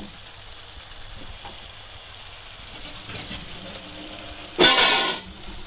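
Marinated chicken pieces frying in oil in a pan on a high flame, a steady sizzle. About four and a half seconds in, a loud pitched honk of under a second, a vehicle horn, sounds over it.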